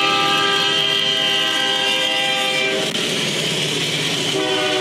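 CN freight locomotive's air horn sounding at a grade crossing: a loud held chord that breaks off about three seconds in, leaving the rumble of the passing train, then sounds again near the end.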